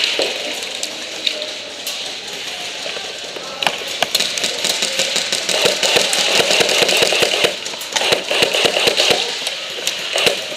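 Airsoft electric gun firing on full auto: a long burst of about four seconds, then a shorter burst of about a second, each a rapid buzzing stream of shots, with a few single clicks before them.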